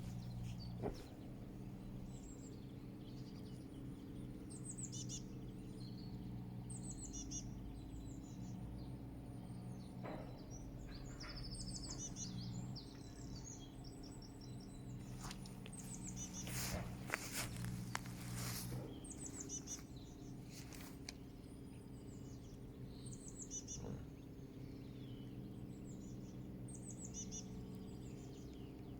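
Small birds chirping in short, high, repeated phrases over a steady low background hum, with a few sharp clicks a little past halfway.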